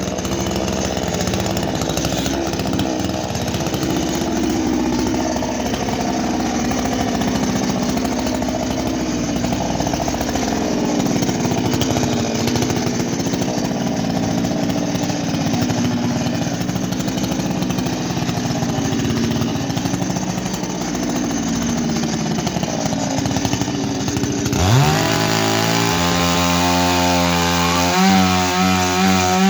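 Petrol chainsaw engine running at speed, its pitch rising and falling. About 25 seconds in the sound changes abruptly to a cleaner engine note that climbs and then revs up and down.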